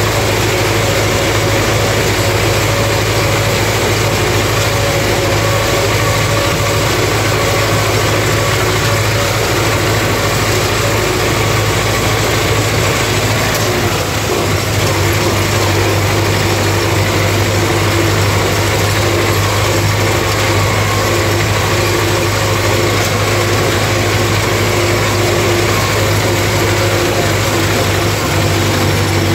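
MTZ-50 tractor's four-cylinder diesel engine running steadily, heard from inside the cab, while it drives a ZTR-165 rotary mower.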